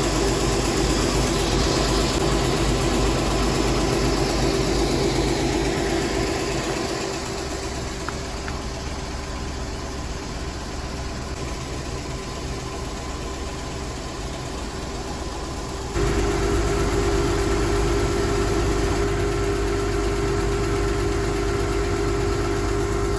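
Feed-pellet conveying machinery running with a steady engine-like drone and hum. It grows somewhat quieter about seven seconds in and comes back abruptly louder about two-thirds of the way through.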